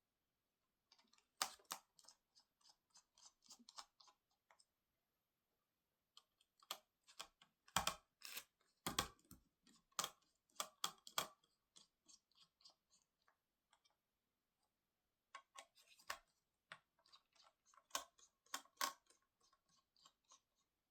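Clusters of small clicks, crackles and scrapes from hand work on an opened laptop, with a few sharper knocks about eight and nine seconds in and again near the end.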